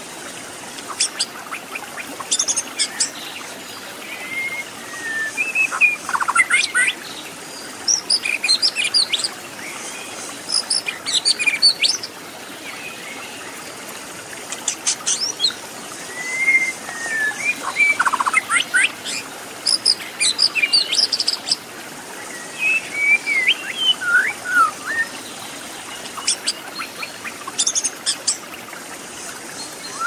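White-rumped shama (murai batu) singing: a phrase every few seconds of whistled notes that slide up and down, mixed with quick high chattering notes. Under it runs a steady hiss of flowing water.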